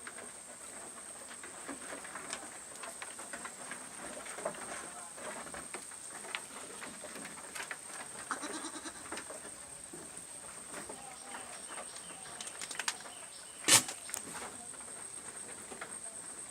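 Goats bleating now and then, among scattered small knocks and rustles, with one sharp loud knock about three-quarters of the way through.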